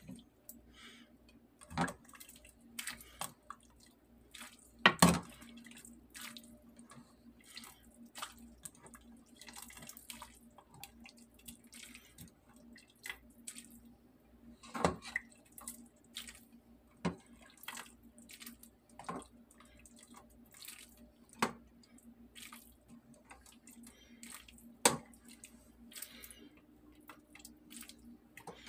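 Metal ladle scooping shrimp sinigang from a pot and pouring it into a ceramic bowl: broth dripping and splashing, with sharp clinks of the ladle against the pot and bowl every few seconds. A faint steady low hum runs underneath.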